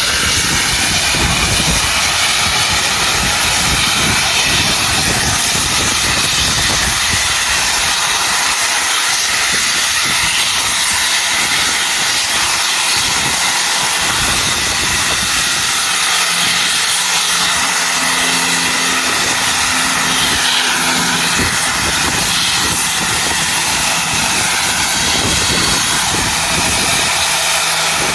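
A railway locomotive giving a steady, loud rushing hiss without a break, with a faint low hum joining in for a few seconds just past the middle.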